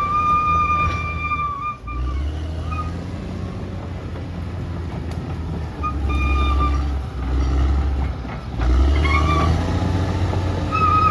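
Caterpillar D6R XL bulldozer's diesel engine running under load, its low rumble swelling and easing several times.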